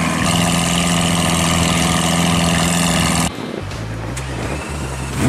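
Lamborghini Aventador's V12 idling steadily. About three seconds in, the steady note stops abruptly and a quieter low rumble follows, with a short rising sound at the very end.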